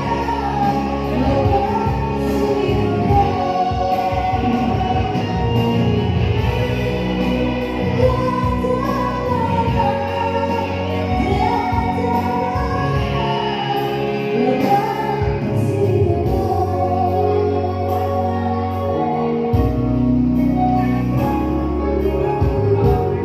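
A woman singing a melody with held notes over musical accompaniment.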